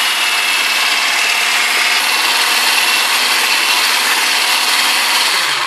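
Electric mixer with a whisk attachment running steadily as it beats cake batter in a ceramic bowl, the motor winding down and stopping near the end.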